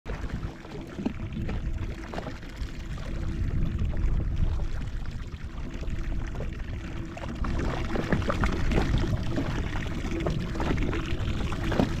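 Seawater sloshing and splashing against the hull of a personal watercraft on open ocean, irregular and continuous, with a faint steady hum underneath.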